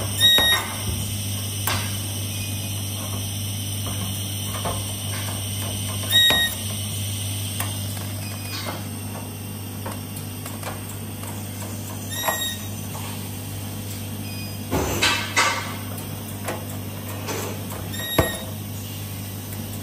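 Resistance spot welder joining sheet-steel panels, a weld about every six seconds, each a short sharp crack with a brief high tone, over a steady low hum.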